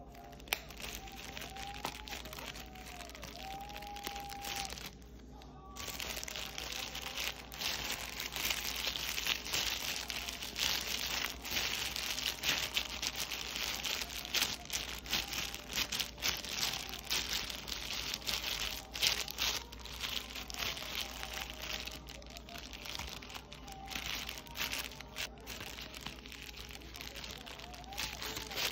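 Clear plastic disposable gloves crinkling and rustling as gloved hands knead and squeeze a lump of air-dry clay to work black paint through it. It is quieter for the first few seconds, then becomes a busier, steady crinkling from about six seconds in.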